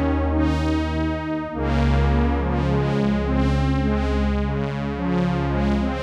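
Korg Minilogue XD four-voice analog synthesizer playing sustained chords with a Prophet-10-style polysynth patch over a low bass note. A new chord comes in about a second and a half in and another at the end, each starting bright and mellowing as it is held.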